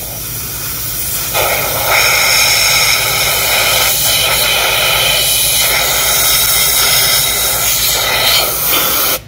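Compressed air hissing from an air blow gun, aimed at a Toyota Prius mass airflow sensor from a distance to test whether the sensor responds. It gets louder about a second and a half in and cuts off abruptly at the very end.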